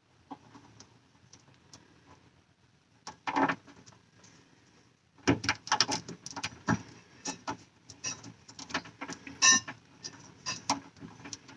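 Light clicking and rattling of electrical wires and small hardware being handled while stranded wire is wrapped onto solid wire for a wire-nut splice. A few scattered ticks at first, a brief louder rustle about three seconds in, then a dense run of quick clicks from about halfway.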